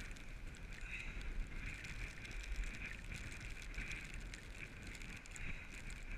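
Strong gusting wind buffeting the camera's microphone: a low rumble with a hissing layer that swells and eases with each gust, and scattered faint ticks.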